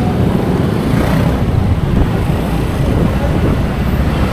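Motorbike riding in town traffic: a steady, loud rumble of the bike's engine, road and wind noise, with surrounding traffic.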